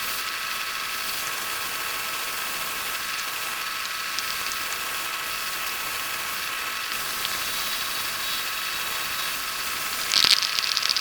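Antique wood lathe running steadily, its motor giving a whine of several steady tones, while a wand spins on it. Near the end, 120-grit sandpaper pressed against the spinning wood gives a short, louder hiss.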